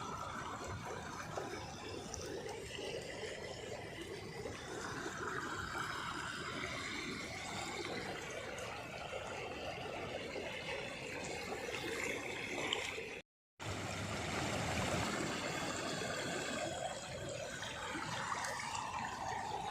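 Heavy monsoon rain with running water, a steady wash of noise that cuts out for a moment about two-thirds of the way through.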